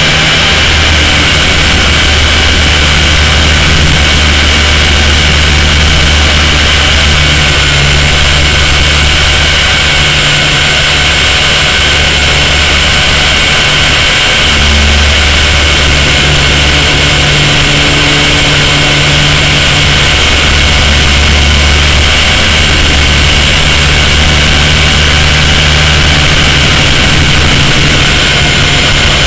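Blade 130 X radio-controlled helicopter in flight, picked up close by a camera strapped to its frame: its electric motors whine steadily, with a low rotor thrum that swells and fades every few seconds.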